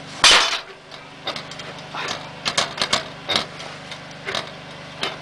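A sharp metal clank as the door of a Feringer wood stove is shut, about a quarter second in, then scattered sharp crackles from the fire burning up in the firebox.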